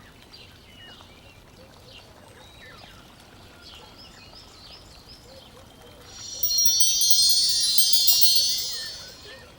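Faint bird-like chirping, then about six seconds in a loud cluster of high chime tones, like a wind-chime sound effect, rings for about three seconds and fades away.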